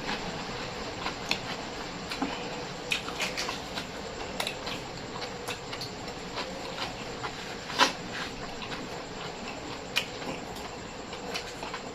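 A person eating close to the microphone: wet chewing with scattered sharp clicks and bites, the loudest about eight seconds in, over a steady hiss.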